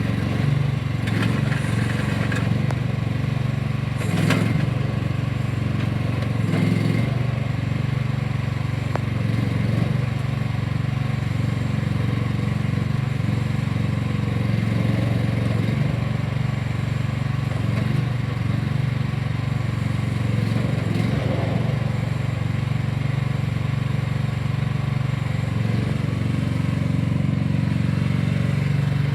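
2023 AGT KAT12 mini excavator's small engine running at a steady speed, with a few knocks in the first several seconds.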